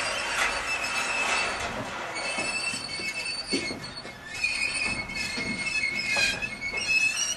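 High metallic squealing that comes and goes, with occasional knocks, as a crane lowers a curved steel Harvestore silo panel onto pallets on a flatbed trailer.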